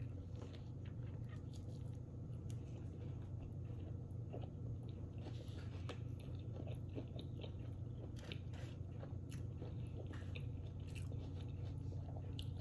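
A person biting into a soft shrimp taco and chewing it, with many small scattered mouth clicks, over a steady low hum.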